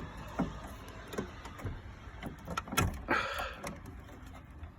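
Electrical connectors being pulled off a boiler's fan by hand: scattered small clicks and knocks, with a short scraping rustle about three seconds in.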